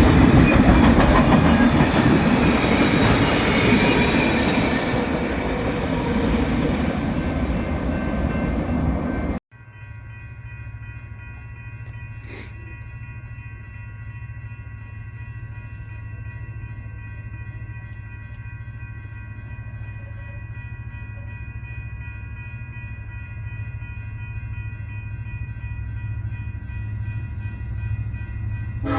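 A freight train rolling past close by, its wheels loud on the rails, cutting off suddenly about nine seconds in. Then a train's low rumble, much quieter, slowly grows louder as it approaches, with several steady high tones held throughout.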